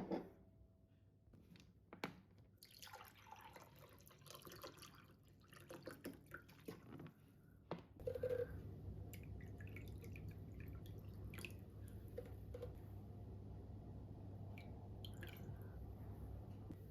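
Faint dripping and trickling water with a few light knocks of things being handled, then a steady low hum from about eight seconds in.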